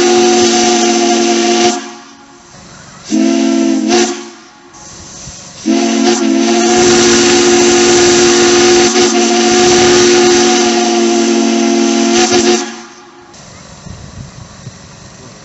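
Hancock three-chime steam whistle blown on steam, sounding a steady chord over a hiss of steam in three blasts: one that ends about two seconds in, a short toot a second later, then a long blast of about seven seconds.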